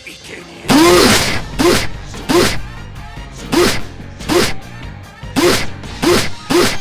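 A voice saying "drš" about eight times at uneven intervals, each a short syllable that rises then falls in pitch and ends in a "sh" hiss, over music.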